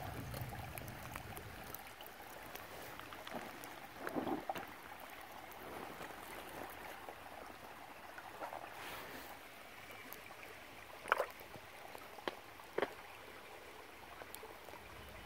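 Shallow creek water trickling steadily, with a few short, faint knocks near the end.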